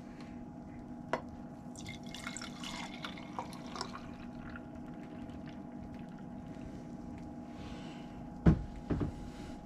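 Thick yeast slurry poured from a plastic jug into a glass clip-top jar, trickling and dripping faintly, with a few small clicks. Two knocks near the end as the jar is handled, over a steady low hum.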